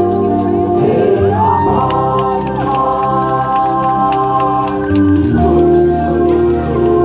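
Performance music with long held notes and singing voices; the chord changes a little past five seconds in.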